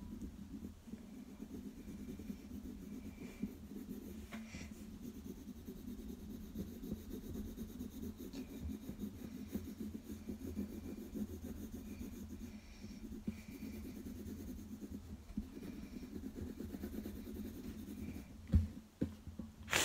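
Pencil shading on sketchbook paper: a continuous fast scratching of graphite in short back-and-forth strokes as an area is darkened in. A light knock near the end.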